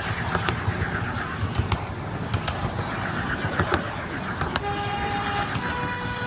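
7¼-inch gauge miniature train running, a steady rumble with sharp clicks from the wheels on the track. About three-quarters of the way through, the locomotive's horn sounds two notes in turn, the second a little higher and held on.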